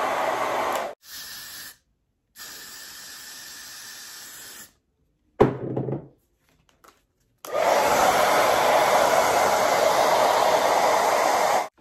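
Bonnet hair dryer blowing air steadily, in several stretches that cut off abruptly. It is quieter in the middle stretches and loudest near the end. Near the middle there is one short, sudden sound.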